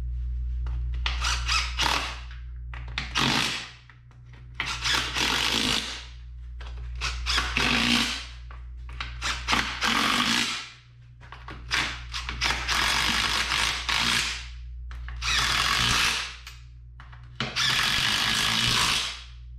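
Cordless drill run in short bursts, about eight runs of one to three seconds each, driving the bolts that join the two halves of an NP208 transfer case.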